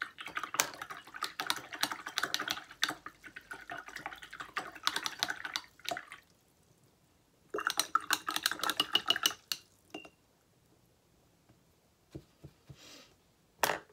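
Paintbrush being swished in a glass jar of rinse water, clicking rapidly against the glass. The clicking comes in two bouts, the second starting about seven and a half seconds in and lasting a couple of seconds.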